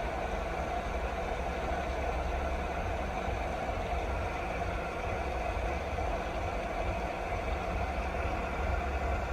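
Steady, unbroken rain noise over a deep, constant low rumble.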